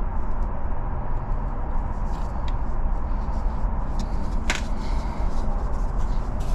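A steady low hum runs throughout, with a few sharp metallic clicks, the loudest about four and a half seconds in, from handling a refrigerant valve core removal tool on a service valve.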